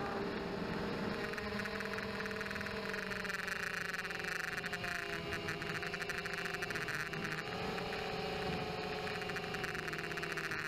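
Blade 200QX quadcopter's motors and propellers whining, heard from its own onboard keychain camera. Several tones slide up and down as the motor speeds change, over a steady hiss.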